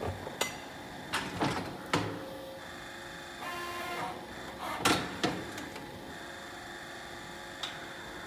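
Several sharp knocks and clatters, the loudest about five seconds in, over a steady machine hum, with a short hiss about three and a half seconds in.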